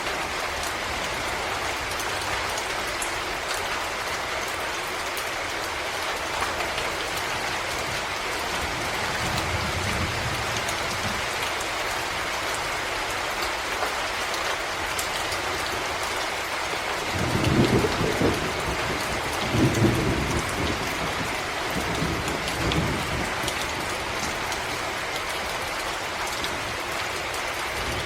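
Rain falling steadily on forest foliage, a continuous hiss of drops. Low thunder rumbles under it: a faint one about ten seconds in, and louder ones around two-thirds of the way through.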